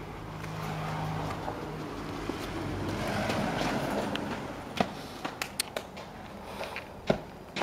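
A road vehicle passing, swelling and fading over a few seconds, followed by several sharp clicks and taps.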